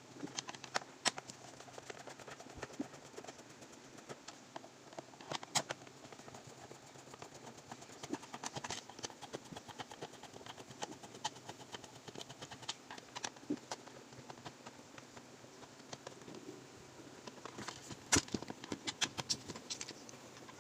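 Scattered small clicks and taps of screws being undone and a nebulizer's plastic case being handled and opened, with sharper knocks about five seconds in and again near the end.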